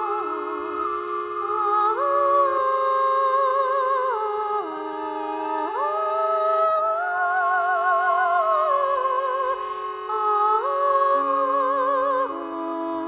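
Background music: a slow melody of long held notes with vibrato, gliding from one pitch to the next over a sustained lower note.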